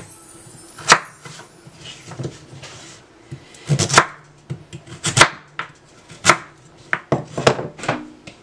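Chef's knife cutting raw vegetable into fry wedges on a wooden cutting board: about a dozen sharp knocks at irregular intervals as the blade goes through and hits the board.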